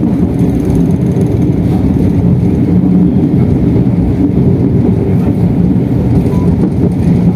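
A moving train heard from inside the passenger carriage: a loud, steady low rumble of the running train.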